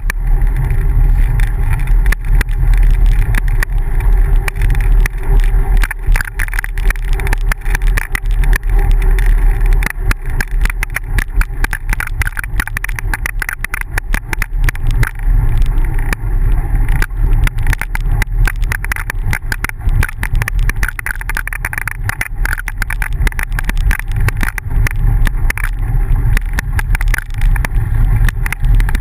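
Wind and road vibration on a bicycle-mounted camera riding a dirt road: a loud, steady low rumble with constant fine rattling clicks.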